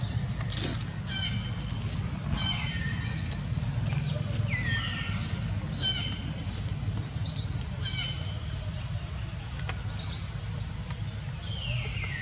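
A run of high-pitched animal calls, each falling sharply in pitch, about one a second, over a steady low background rumble.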